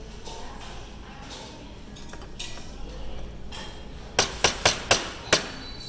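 Raw egg being cracked for separating the yolk: five sharp knocks against a hard edge in about a second, about four seconds in, each with a short clinking ring.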